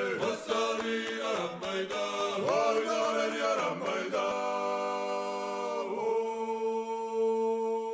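Background music: a Georgian polyphonic choir singing a cappella, the voices sliding between notes for a few seconds and then settling into one long held chord about halfway through.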